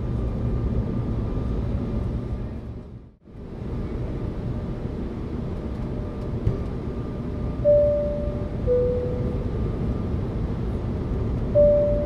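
Airliner cabin seat-belt sign chime: a two-tone high-then-low ding-dong about two-thirds of the way in, over a steady low cabin rumble. The high tone of a second chime sounds near the end. The rumble briefly fades out and back in about three seconds in.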